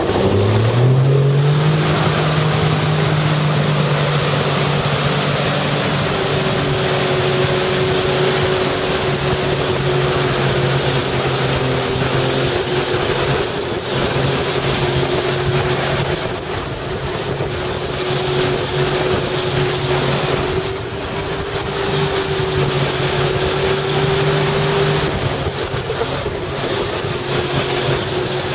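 Tow boat's engine rising in pitch as it accelerates to pull a waterskier out of the water, then running steadily at speed, over wind and rushing water.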